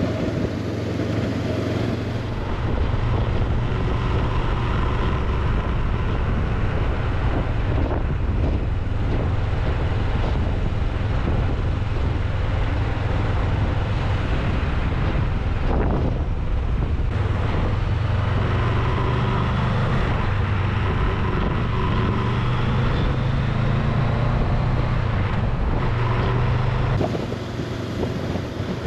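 Honda CB500X parallel-twin motorcycle engine running steadily under way, with wind rushing over the rider's microphone. It gets louder about two seconds in and eases back near the end.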